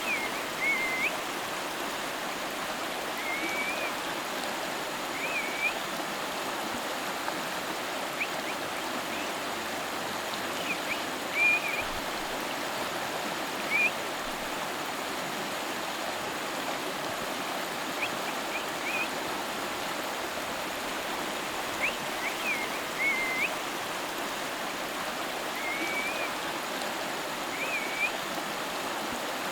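River water flowing steadily over stones, a continuous rushing babble. Short high chirps sound every few seconds over it, the loudest at about 11 and 14 seconds in.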